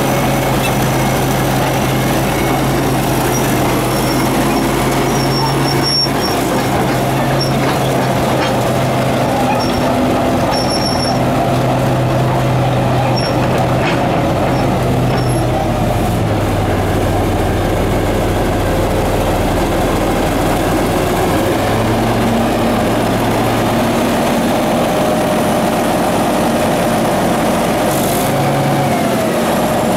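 1977 Caterpillar D8K crawler dozer on the move, its diesel engine running loud and steady. The engine note drops about halfway through and picks up again some seconds later, with a few short high squeaks in the first half.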